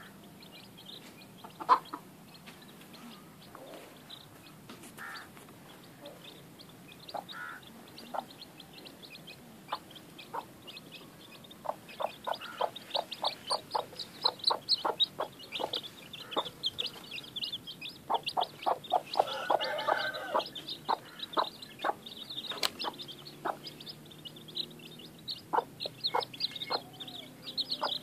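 A hen clucking in short repeated notes to her chicks, over the chicks' thin, high peeping. Both grow much busier about halfway through.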